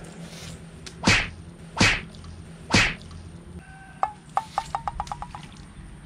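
Three sharp swishes of a fishing rod whipped through the air, a little under a second apart. About a second later comes a fast run of light clicks from the fishing tackle.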